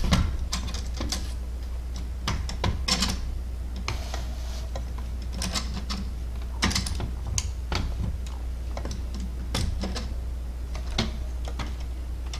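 Irregular light clicks and taps of 3D-printed plastic clock parts as the front frame is pressed down and the gear arbors are wiggled into their holes, over a steady low hum.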